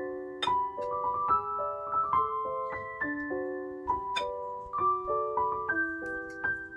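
Background piano music: a keyboard melody of held, overlapping notes.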